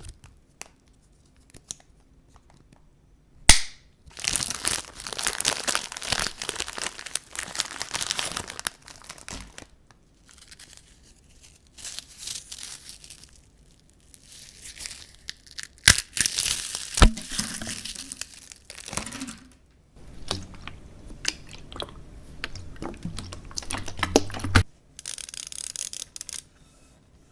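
Crinkling, crumpling and tearing noises in several separate bouts, with a few sharp clicks between them and a thinner high hiss near the end.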